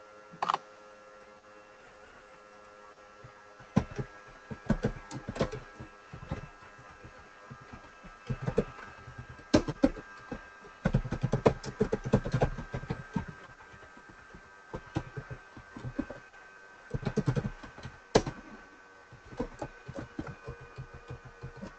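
Computer keyboard typing in irregular bursts of keystroke clicks, with short pauses between bursts, over a faint steady hum.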